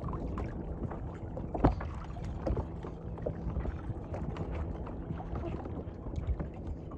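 Handling noises in a fishing boat: a sharp knock about a second and a half in and scattered smaller clicks and taps as fishing gear and a tool are handled, over a steady low rumble of wind and water.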